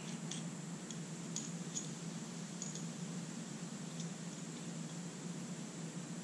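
A few faint, sparse metallic clicks as a tap is handled and tightened in a hand-held T-bar tap wrench, over a steady low background hum.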